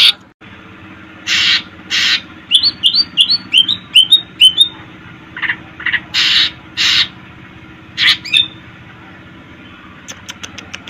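Cucak ijo (green leafbird) singing in spaced phrases: loud harsh rasping notes and a quick run of short downward-sweeping chirps, then a few faint quick clicks near the end.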